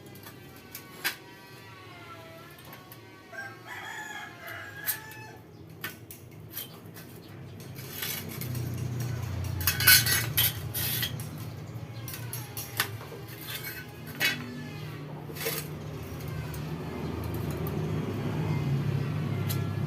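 Chickens crowing and clucking in the background, with scattered sharp metal clicks and a burst of loud clacks about halfway through. A low steady hum grows stronger from about eight seconds in.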